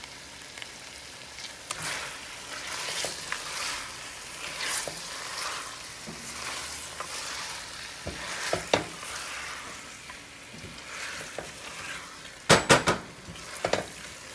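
Chicken pieces frying in oil and masala in a pot, sizzling steadily while a slotted silicone spatula stirs and turns them in repeated scraping strokes. A few sharp knocks near the end.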